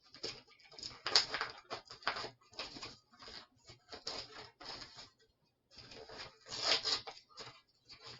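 Stiff plastic blister packaging being crinkled and pried open by hand: a run of irregular crackles and crunches with short pauses, the packaging fighting back before it gives.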